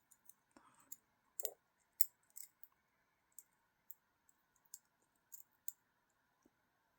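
Small, sharp, irregular clicks and taps of a Benchmade Mini Griptilian folding knife's small metal parts (liners, Omega springs) being handled and fitted during reassembly, the loudest about one and a half and two seconds in.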